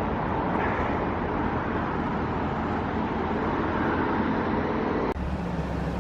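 Steady road traffic noise, an even rushing haze, which changes abruptly about five seconds in.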